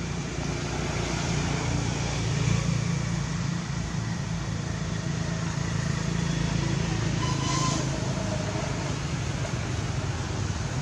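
Steady low rumble of vehicle traffic, with a short high-pitched chirp about seven and a half seconds in.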